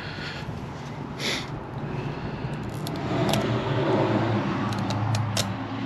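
A low engine drone with a few steady pitches, slowly growing louder, with a few light clicks over it.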